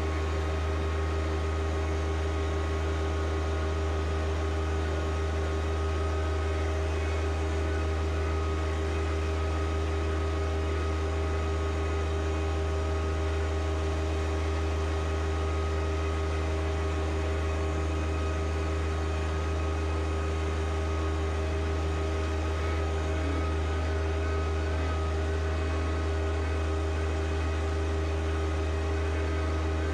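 A steady mechanical hum: a strong low drone with several steady tones above it, unchanging throughout.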